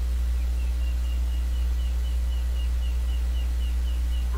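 Steady low electrical mains hum, with a faint run of short high-pitched chirps, about four a second, starting about half a second in.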